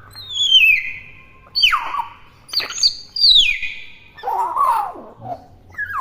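Hill myna calling over and over: loud whistles that slide down in pitch, about one a second, with a lower, rougher call about four seconds in.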